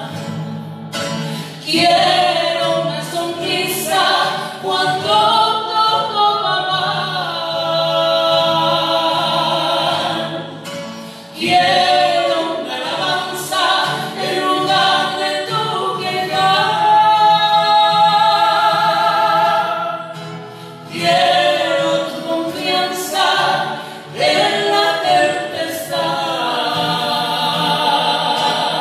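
A woman singing a Spanish-language worship song with long held notes, with acoustic guitar accompaniment.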